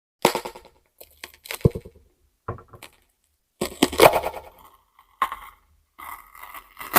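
Close-miked crunching of raw vegetables being bitten and chewed, in a series of separate crisp, crackling bursts with complete silence between them.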